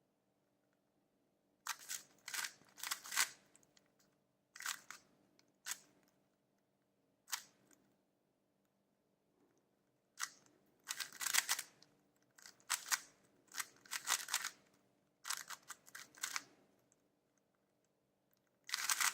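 Plastic layers of a MoFangGe Thunderclap 4x4 speed cube clicking and clacking as they are turned quickly, in short flurries of moves with pauses between them, while the centres are solved.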